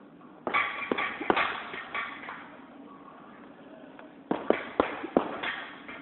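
Gloved punches and a kick landing on a heavy punching bag: a quick flurry of thuds about half a second in, another near two seconds, and a second flurry of four or five hits just after four seconds.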